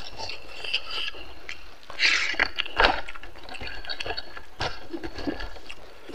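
Fingers mixing rice and pork curry on a banana leaf: the leaf rustles and crackles under the hand in short irregular bursts, loudest about two to three seconds in.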